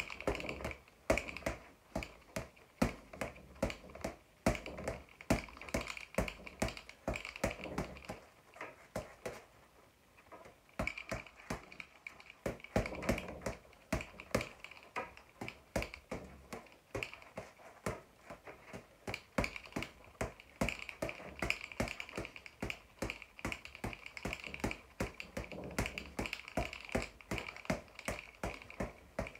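Boxing gloves striking a leather floor-to-ceiling ball in quick, irregular volleys of sharp slaps, several a second, with a break of about two seconds a third of the way in.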